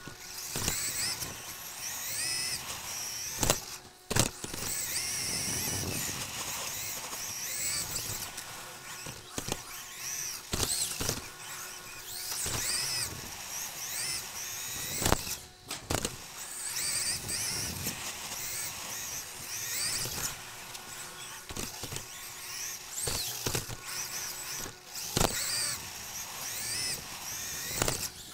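Onboard sound of an Xray XB2 2WD electric off-road RC buggy with a 13.5-turn stock brushless motor: a high motor and gear whine that rises and falls with throttle as it laps. Several sharp knocks come from bumps and landings.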